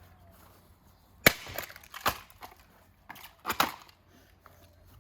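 Golf club striking a small plastic fan heater: a series of sharp blows and cracks, the loudest a little over a second in, more near two seconds and a cluster around three and a half seconds.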